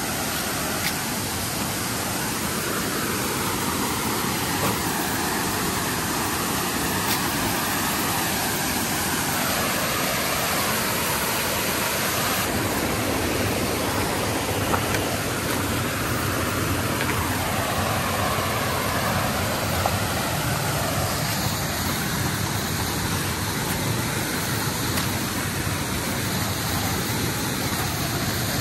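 Mountain stream rushing and cascading over rocks: a steady, loud rush of whitewater, with a few faint knocks.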